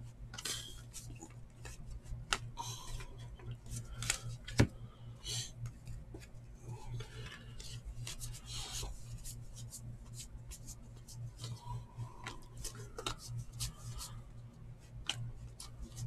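2019 Topps Archives baseball cards being flipped through one by one, the cardboard sliding and rubbing against the stack in quick soft scrapes and clicks, with one sharper click about four and a half seconds in. A low steady hum runs underneath.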